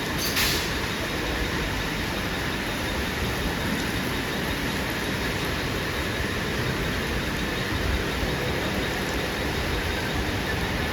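Mumbai suburban local (EMU) train running on the rails in heavy rain: a steady rumble and hiss, with a brief high-pitched wheel squeal about half a second in.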